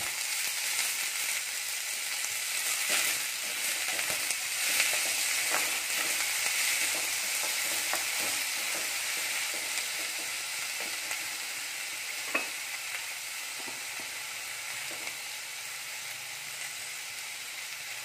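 Sliced ivy gourd and onion sizzling in coconut oil in a metal kadai, stirred with a wooden spatula. Spatula taps and scrapes against the pan come often in the first half, with one sharp tap about twelve seconds in, and then the frying settles to a steady, slightly quieter hiss.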